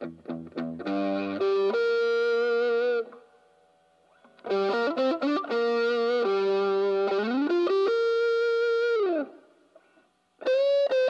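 Tokai Super Edition SD-65s electric guitar with a Shift 2001 tremolo playing three short lead phrases of held, sustaining notes. Its pitch slides up and then drops in a falling glide near the end of the second phrase.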